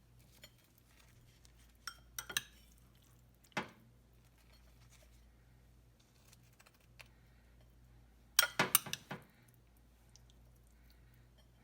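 Dishes and utensils clinking and knocking in a few short strikes: two or three around two seconds in, one more a little later, and a quick cluster of several near the end.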